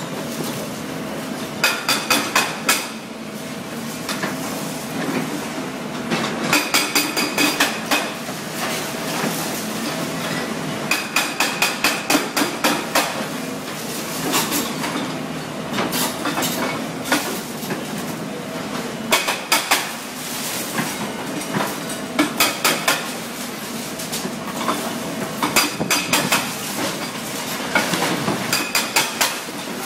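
CMB CM 650 hydraulic breaker on an excavator hammering in bursts of rapid metallic blows, each burst lasting a second or two and coming every few seconds, over the steady running of the excavator engine.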